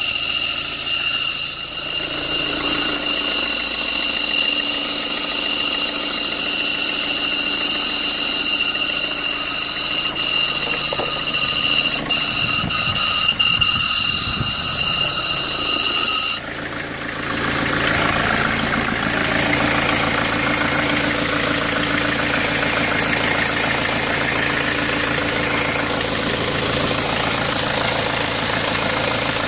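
Vehicle engine running at a steady level, with a high-pitched whine that cuts off abruptly about 16 seconds in, leaving an even, noisier engine sound.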